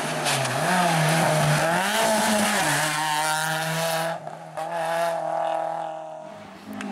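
Hill-climb race car engine at full throttle, its pitch rising and dipping as the car works up the course. About four seconds in the engine lifts off, then holds a steadier note that fades as the car goes away.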